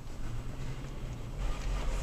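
Third-generation Toyota Tacoma 4x4 driving on a dirt road, heard from inside the cab: a steady low engine and tyre rumble, with a few light knocks and rattles near the end.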